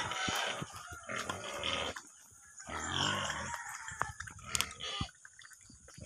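A pig eating wet slop from a tire feeding trough, slurping and chewing in several bouts with short pauses between them.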